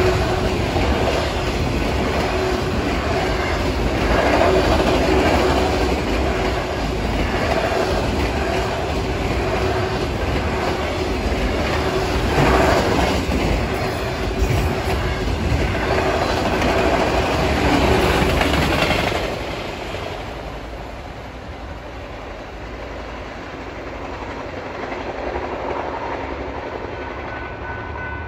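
Union Pacific manifest freight train's cars rolling past at speed, a steady rail-and-wheel rumble. The noise drops off sharply about two-thirds of the way through.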